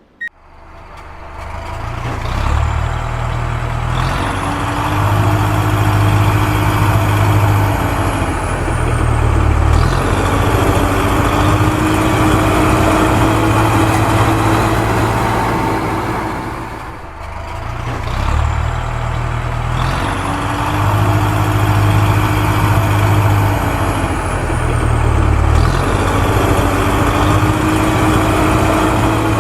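A recorded heavy-machinery engine sound running loudly, rising and falling in strength. It dips briefly about 17 seconds in and then starts the same pattern over, like a loop.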